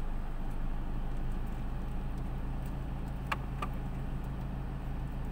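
Car engine running steadily with a low hum, heard from inside the car. Two short sharp clicks come a little over three seconds in.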